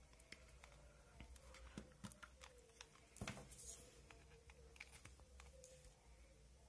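Near silence: faint clicks and rustles of hands handling cables and a smartphone, with one louder click about three seconds in, over a faint steady hum.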